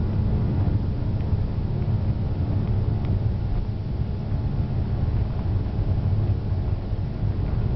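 Airbus A340-300 on its takeoff roll, heard inside the cabin near the front: a steady low rumble from its four CFM56 engines at takeoff power and its wheels running along the runway.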